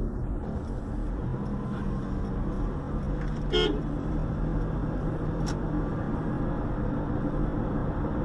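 Steady low rumble of a car driving at road speed, engine and tyre noise heard from inside the cabin, with a brief sharper sound about three and a half seconds in.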